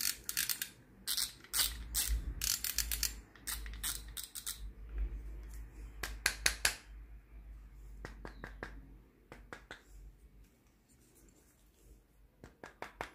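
Penn Battle II spinning reel's mechanism clicking in quick ratchet-like runs as it is worked by hand, with the low rumble of handling. The clicks come in several bursts, dense at first and then sparser.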